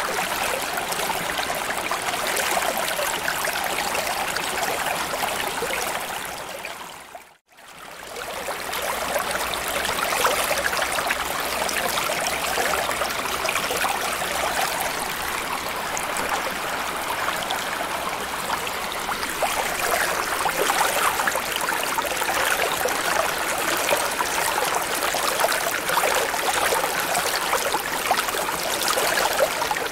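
Underwater ambience: a steady, even rush of water noise. About seven seconds in it fades out to a moment of silence, then returns.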